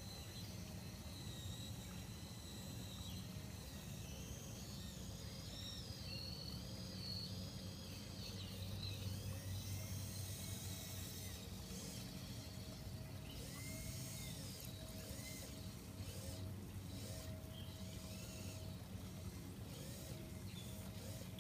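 Small electric gear motors of a radio-controlled crawler crane whining faintly as it lowers and swings its bucket, with a thin steady whine from about halfway through. Birds sing in the background.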